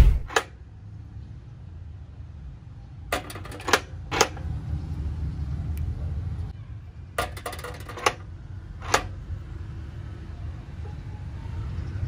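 Homemade door bolt worked by a bicycle sprocket and chain, turned by hand: sharp metallic clicks and rattles in a few clusters as the sprocket turns and the bolt slides. A steady low hum runs underneath.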